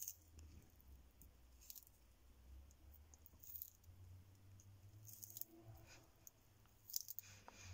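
Faint crisp clicks of a Horsfield tortoise's beak biting and chewing a dandelion leaf, coming every second or two.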